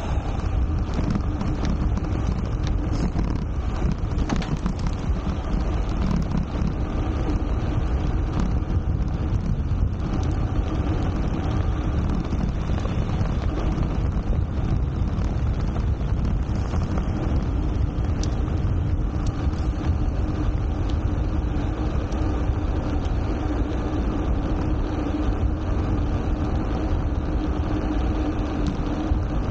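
Steady wind rush buffeting the bike-mounted action camera's microphone as a gravel bike coasts downhill, with a deep, even rumble.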